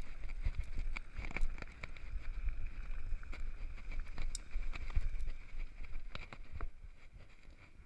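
Downhill mountain bike rolling over a dirt forest trail: tyres on dirt with a steady rumble, and the chain and frame rattling with many small knocks over bumps. The noise eases off near the end as the bike slows.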